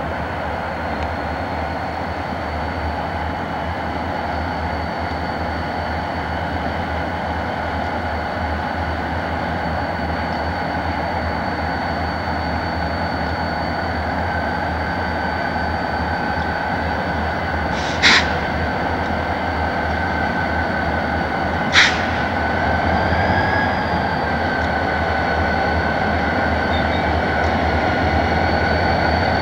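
Diesel locomotive running steadily, a low rumble with a thin steady whine over it that slowly grows louder. Two sharp clicks about four seconds apart come past the middle.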